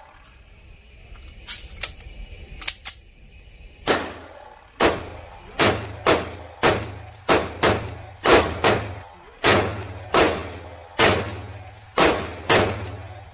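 SIG Sauer P229 Legion SAO 9mm pistol firing a string of about fifteen shots at a steady pace, roughly one every half-second to second, in an indoor range. The string starts about four seconds in, after a few faint sharp clicks.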